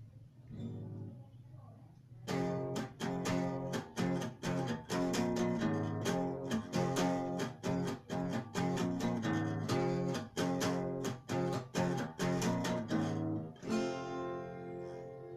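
Acoustic guitar strummed in a steady rhythm of quick strokes, starting about two seconds in and ending near the end on a last chord left to ring out, picked up by a smartphone's built-in microphone.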